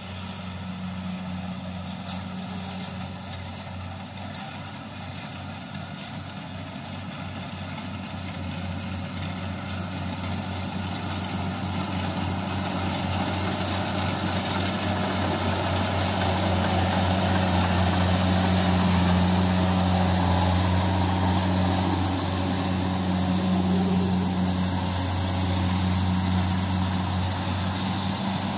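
Kubota rice combine harvester's diesel engine running steadily under load as it cuts ripe rice, with the clatter and rush of its cutter and threshing gear. It grows louder through the first half as the machine comes closer.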